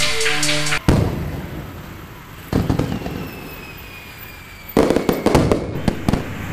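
Fireworks crackling and popping in bursts: one about a second in, another near two and a half seconds, and the densest about five seconds in. A thin whistle falls slowly in pitch between them. The intro music's notes cut off just before the first burst.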